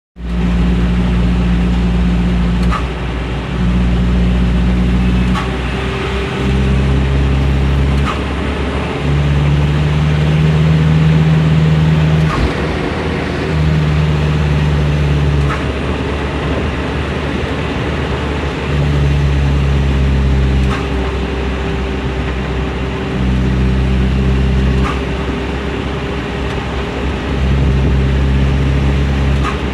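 Truck engine running as the truck is driven. Its pitch holds steady for a few seconds at a time, then shifts in steps.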